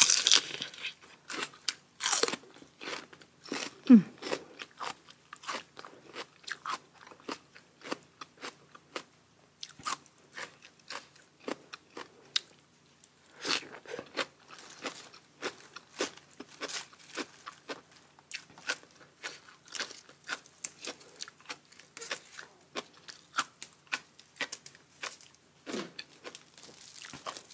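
A person eating spicy tam sua (papaya salad with rice noodles) close to the microphone: continual wet chewing, smacking and crunching of mouthfuls. The louder crunches come at the start and about two seconds in, and there is one short low falling sound about four seconds in.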